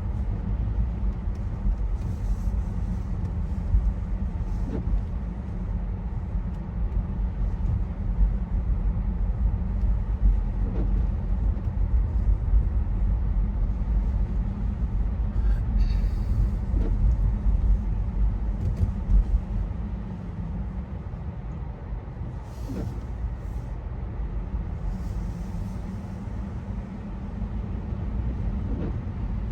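Steady low vehicle rumble, with a faint short rising chirp about every six seconds.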